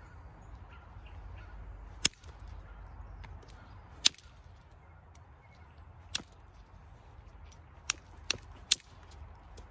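Copper-tipped billet striking the edge of a creek flint blade in percussion flaking: about six sharp clicks, spaced about two seconds apart at first, then three in quick succession near the end.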